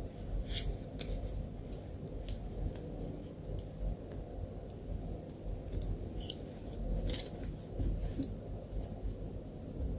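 Faint, scattered crisp clicks and rustles from the pieces of a latch hook kit being handled during unboxing.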